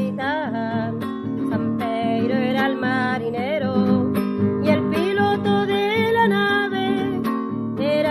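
Music: strummed acoustic guitar chords with a wavering, gliding melody line over them.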